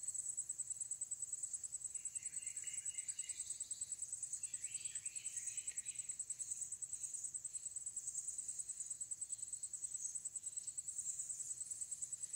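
Insects trilling steadily in a high, fast-pulsing chorus, with fainter, lower chirping joining about two seconds in and again around five seconds in.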